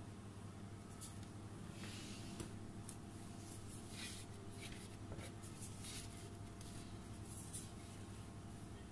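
Silicone spatula scraping batter off the inside of a bowl: a series of faint, soft scrapes over a low steady hum.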